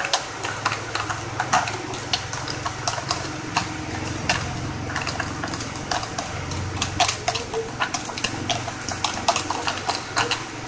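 A spoon clicking and scraping against a bowl in irregular taps, several a second, as glue slime is stirred, over a steady low hum.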